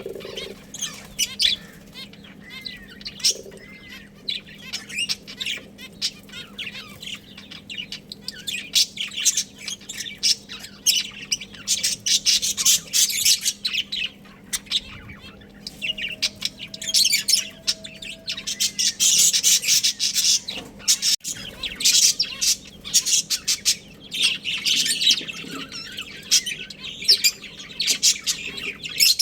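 Budgerigars chirping rapidly and continuously, several birds at once, growing busier in bursts every few seconds.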